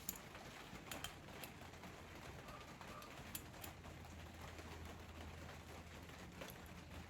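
Faint, scattered metallic clicks and taps as tools and parts are handled while taking apart Felco pruners, over a low steady hum.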